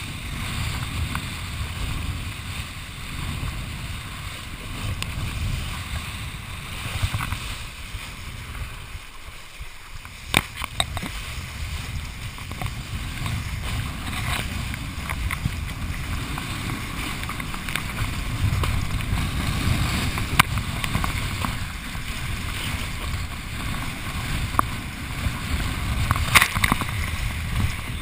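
Kiteboard skimming fast across choppy water: steady hissing spray with wind rumbling on the camera's microphone, and a few sharp slaps as the board hits chop.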